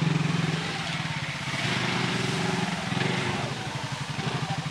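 Hero Splendor motorcycle and Maestro scooter, both single-cylinder four-strokes, running in low gear under load as they churn through loose rice straw to thresh the paddy. A steady engine beat swells and eases a few times as the riders throttle on and off.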